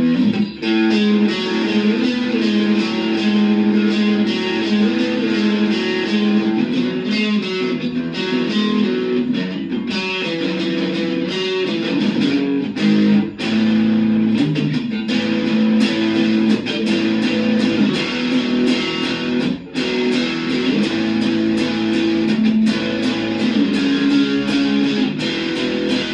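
Electric guitar played through a Boss DS-1 distortion pedal, its PRS Dragon II Bass neck pickup split to single coil: a continuous distorted riff of strummed, sustained chords with sharp pick attacks, played in a punk style.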